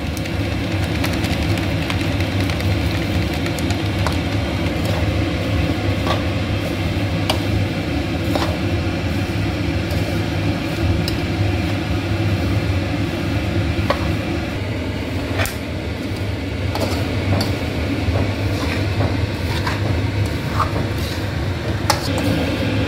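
A steady fan-like mechanical hum throughout, with a metal spatula scraping and knocking against a steel kadhai at irregular moments as sugar is stirred into a dry, crumbly panjiri mix.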